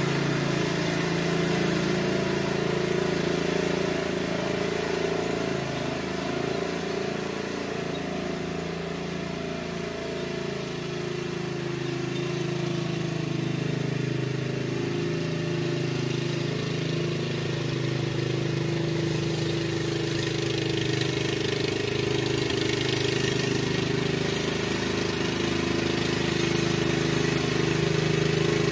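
Riding lawn mower engine running at a steady speed while towing a sprayer. It grows fainter as the mower drives away, then louder again as it comes back near the end.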